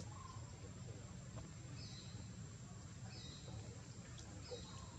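A bird giving a short high call three times, about one and a half seconds apart, over a steady low rumble and a thin steady high tone.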